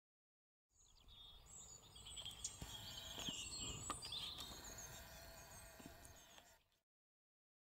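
Small birds chirping and singing over a low outdoor wind rumble, fading in about a second in and cutting to silence near the end.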